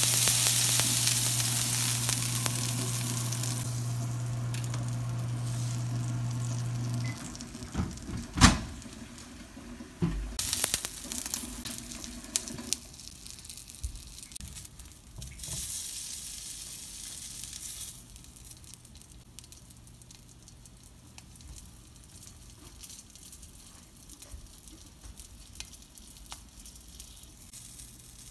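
Liquid poured into a hot cast-iron skillet, sizzling loudly at first over a steady low hum that stops about seven seconds in. A sharp knock comes about eight seconds in, a few knocks follow as an ear of corn goes into the pan, and the pan goes on sizzling more quietly.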